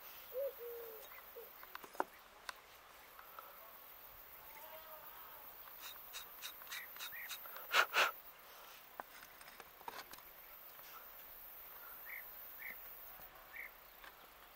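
Birds calling: a short low call about half a second in, then scattered short chirps, with a quick run of chirps building to a loud burst about eight seconds in.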